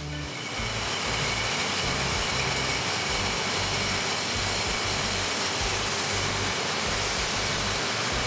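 Beer bottling line machinery running with a dense, steady noise that builds up over the first second.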